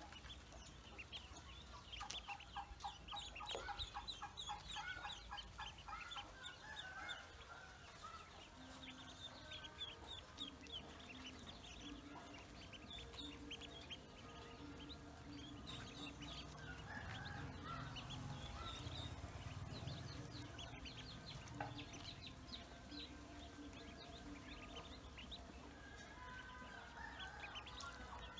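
A flock of Pekin and dark ducklings peeping continuously in short, high calls, with lower clucking calls mixed in.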